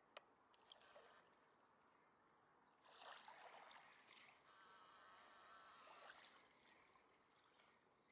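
Near silence, with faint camera handling noise: a sharp click just after the start, soft rustles, and a faint whir about halfway through as the camcorder's zoom motor zooms in.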